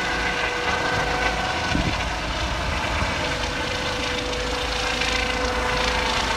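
Air ambulance helicopter flying overhead: steady turbine whine over the rushing noise of its rotor.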